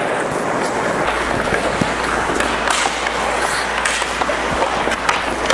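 Hockey skate blades scraping and carving on rink ice, with several sharp clicks of sticks hitting pucks.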